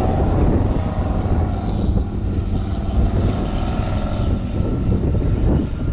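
Off-road race vehicle's engine running, a steady drone that fades about four seconds in, over a heavy low rumble.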